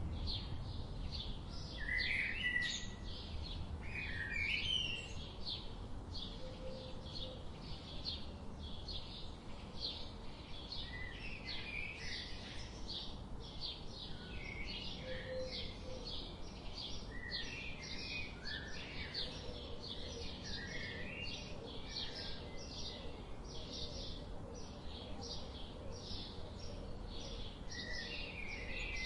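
Several birds chirping and calling together: a fast, continuous run of short high chirps, with lower warbled calls breaking in every few seconds over a steady low background noise.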